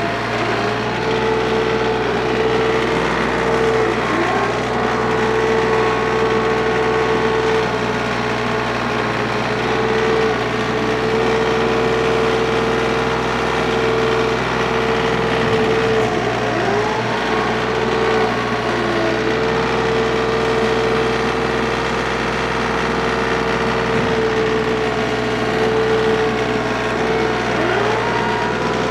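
TYM compact tractor's diesel engine running steadily while grading the dirt pad, with a few short rising pitch sweeps.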